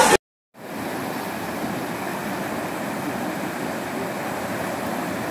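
Fast floodwater rushing and breaking over a shallow river crossing, a steady rush of water. It starts just after a brief silence near the beginning.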